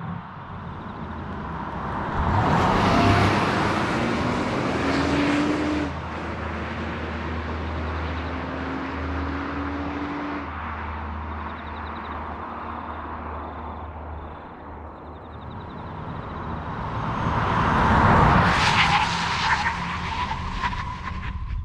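2023 Nissan Pathfinder's 3.5-litre petrol V6 driving, with engine and tyre noise. The sound swells loudly about three seconds in and again near the end, and the engine note climbs slowly in between.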